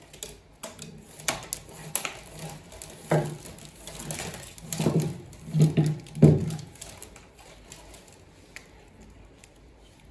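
Nylon trimmer line rustling and scraping as lengths of it are pulled through a Stihl trimmer-head spool and dragged across a wooden workbench. Several louder rubbing sounds come between about three and six and a half seconds in.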